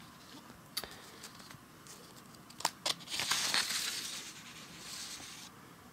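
Paper dyno sheets in clear plastic sheet protectors being handled and turned over. A few sharp crinkles, then a longer rustle of plastic and paper sliding about halfway through.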